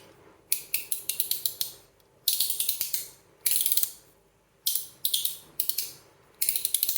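Stainless steel fidget slider being slid back and forth by hand: about six short bursts of rapid metallic clicking, each a fraction of a second to a second long, with brief pauses between them.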